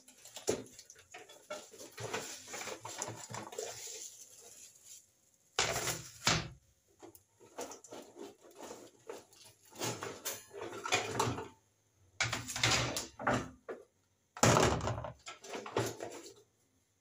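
Clatter and rustle of a dish rack being unpacked and handled: scattered light clicks, then several separate bursts of handling noise about a second long with short pauses between, the loudest near the end.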